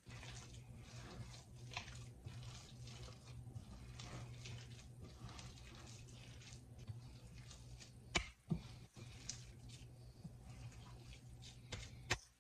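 A hand squeezing and kneading soft tamale masa mixed with chopped vegetables in a stainless steel bowl: faint, irregular wet squishing over a low steady hum, with two sharp knocks, about eight and twelve seconds in.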